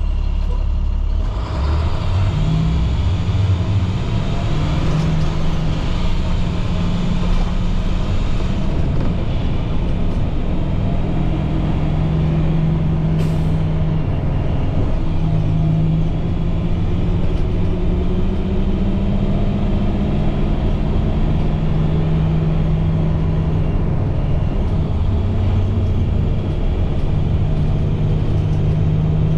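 International MaxxForce DT diesel engine of a 2010 IC CE300 school bus running while the bus drives, its pitch stepping up and down several times. A hiss across the range sets in about a second and a half in, and there is one sharp knock about 13 seconds in.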